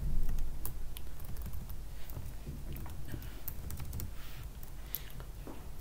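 Computer keyboard keystrokes at an irregular pace: cursor keys and backspace tapped while editing a line of text, over a faint steady low hum.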